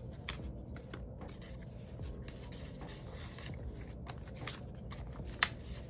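Paper banknotes being handled and sorted by hand: soft rubbing and light ticks, with one sharper click near the end.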